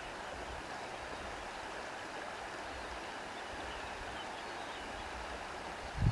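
Steady rush of flowing water, as of a stream, with a brief low thump near the end.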